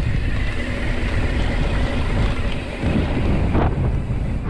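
Wind rushing over the microphone while a mountain bike rolls over a rocky dirt road, with steady tyre noise from the loose stones.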